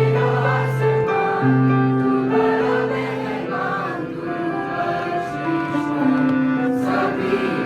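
A group of voices singing a slow prayer in chorus over long held instrumental chords.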